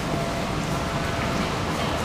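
Steady hiss and low hum of an MRT station concourse's background noise.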